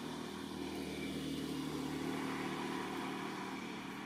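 An engine running steadily in the background, a low hum that swells slightly in the middle and eases off near the end.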